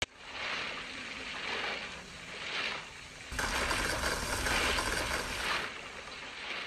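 Dubbed kaiju sound effect for Red King: rough, noisy swells, with a deep rumble joining about halfway through.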